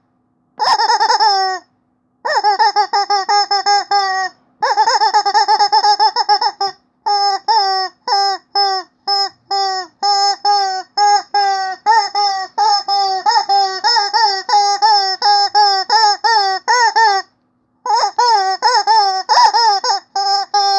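Rubber chicken squeaky toy being squeezed over and over, giving pitched, wavering squeaks. The first few squeaks are long; after that comes a fast run of short squeaks, about three a second, with brief pauses.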